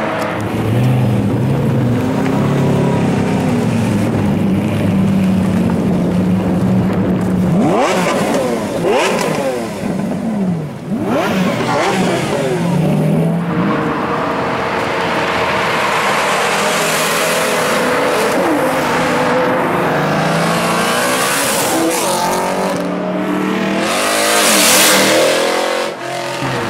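Several high-performance cars accelerating hard one after another, engines revving up through the gears with steep rising pitch climbs. The loudest pass comes near the end.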